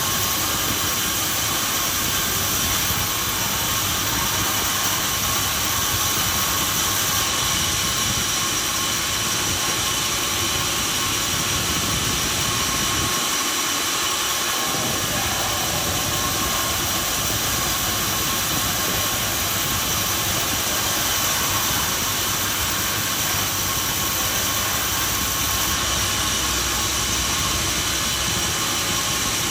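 Industrial sawmill machinery running: a steady, loud mechanical drone with a constant whine and hiss. The low rumble drops out briefly about halfway through.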